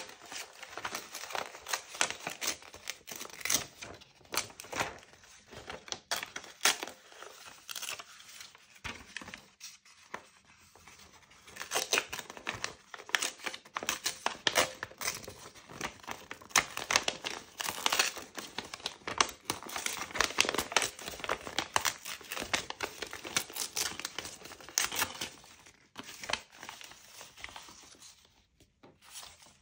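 Paper being handled close up: irregular crinkling and tearing. It eases off briefly and thins out near the end.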